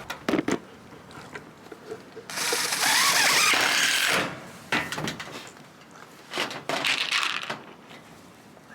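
A power drill driving a screw into wood for about two seconds, with a few knocks before it and a shorter burst of tool or handling noise later.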